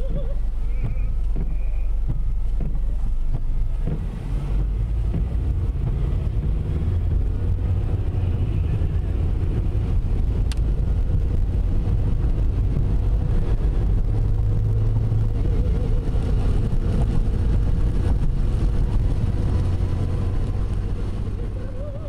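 Steady low road rumble heard from inside a car driving on a wet highway: engine and tyres on wet pavement, with some wind noise.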